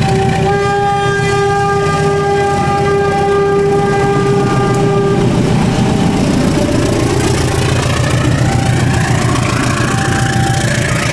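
Diesel-electric locomotive horn sounding one long blast of about five seconds, over the short repeating tones of a level-crossing warning alarm. After the horn stops, the train's wheels and coaches rumble and clatter past close by.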